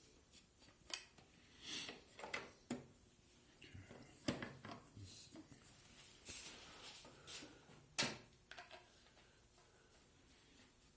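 Faint, scattered clicks, knocks and scrapes of PVC fittings being handled and threaded onto a plastic drain adapter, with the sharpest knocks about four and eight seconds in.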